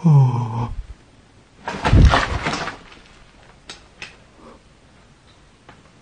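A cat's low, drawn-out cry falling in pitch, then a harsher, growling cry about two seconds in, with two faint clicks near the middle.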